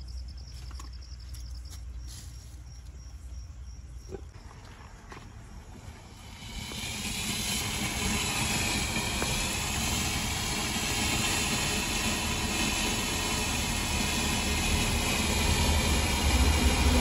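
'Wonder Three' fountain firework (a ground flower-pot fountain) spraying sparks with a loud, steady hiss that starts about six seconds in and grows louder near the end. Before that there is only a low background rumble with a few faint clicks.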